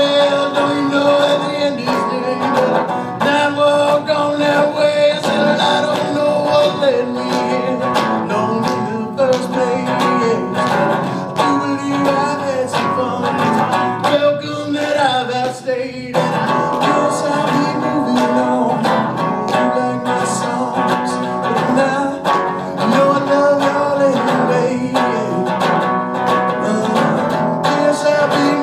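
Live solo acoustic guitar, strummed steadily, with a man singing along.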